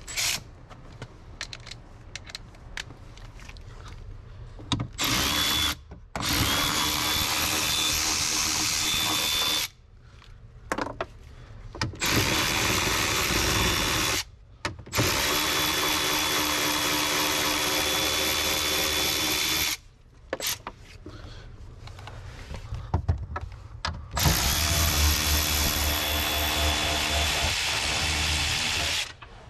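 Cordless drill with a socket running in several spells of a few seconds each, with pauses between, backing out the 8 mm screws that hold an Audi A4 (B8) glove box in the dash. Each run is a steady motor whine that starts and stops sharply.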